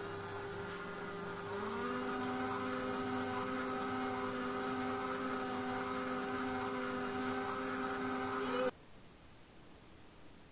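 Electric stand mixer's motor running with a steady hum while its flat beater works flour into cake batter. Its pitch rises about a second and a half in as it speeds up, then the hum cuts off suddenly near the end.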